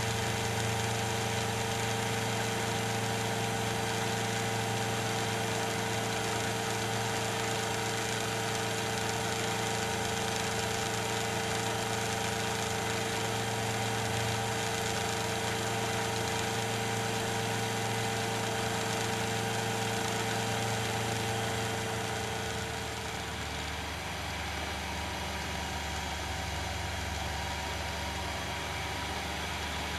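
Challenger II ultralight's engine and propeller droning steadily in cruise flight. About three-quarters of the way through, the note shifts lower and gets slightly quieter.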